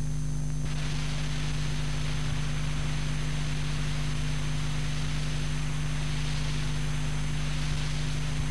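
Steady tape hiss with a low electrical hum from a cassette recording's lead-in before the narration starts; the hiss gets louder just under a second in and then holds.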